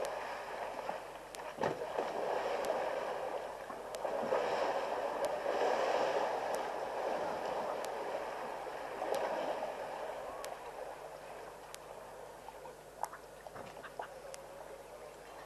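Muddy water sloshing and splashing as elephants wallow and shove each other in a waterhole, swelling to its loudest a few seconds in and easing off near the end, with a few sharp ticks.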